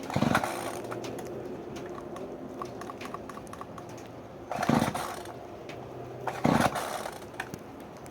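Pull cord of a cold two-stroke chainsaw or string trimmer yanked three times, each pull a short rasping burst; the engine does not catch.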